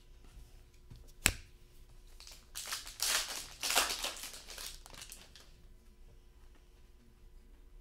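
A foil trading-card pack wrapper being torn open and crinkled by hand, in a dense stretch of crackling from about two and a half to five and a half seconds in. A single sharp click comes about a second in.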